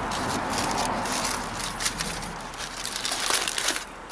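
Aluminum foil crinkling and crackling as it is folded over and pressed shut into a packet by hand.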